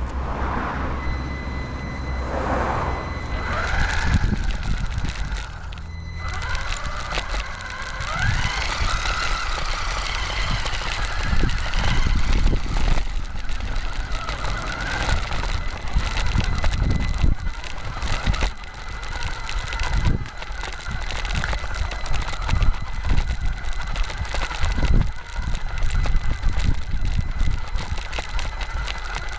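WLtoys A959 1/18 RC car's electric motor and gears whining, the pitch rising and falling with the throttle, over constant rumbling and knocking as it drives across rough ground.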